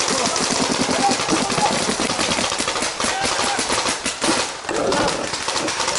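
Paintball markers firing in rapid, continuous strings of sharp pops, several shots a second, close by.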